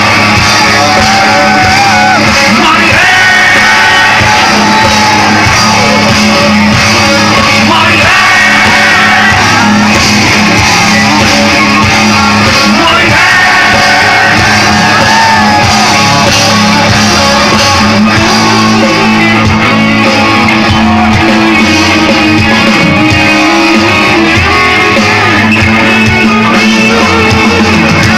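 Rock band playing live with singing over electric guitars and a steady bass, loud throughout, heard from within the crowd.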